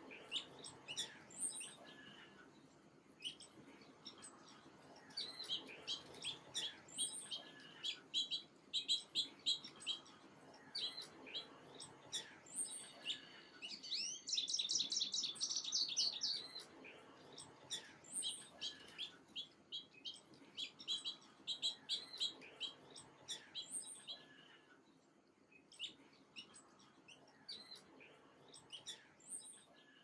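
Small songbirds chirping: many short, high chirps throughout, with a fast trill lasting about two seconds near the middle.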